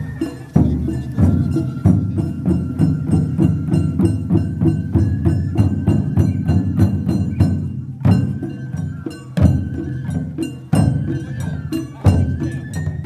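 Japanese festival music: a high bamboo flute playing a melody over dense, rapid, evenly paced drum and percussion strikes.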